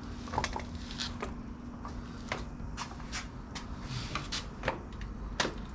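Scattered light clicks and knocks from working the Honda 300EX's gear shifter and clutch lever while shifting between gears, over a low steady hum.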